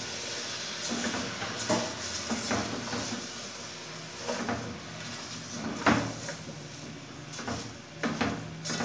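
Silicone spatula stirring raw mango pieces through dry granulated sugar in a metal pot, with irregular scraping strokes against the pot, the loudest about six seconds in.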